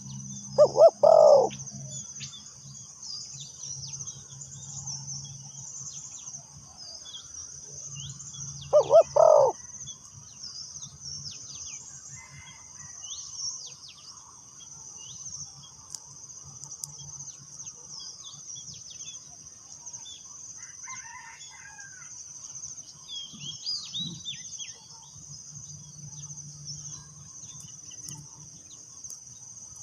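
Spotted dove cooing, two short phrases, about a second in and again about nine seconds in, over a steady high insect drone and scattered small bird chirps.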